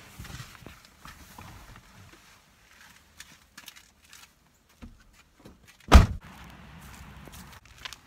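Rustling and small clicks as someone climbs out of a car, then a car door shut with a single loud thump about six seconds in.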